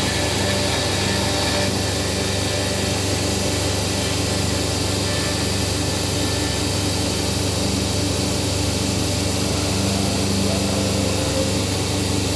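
Morbidelli Author 430 CNC woodworking machining centre running steadily, its spindle cutting wood, with a constant hum and hiss.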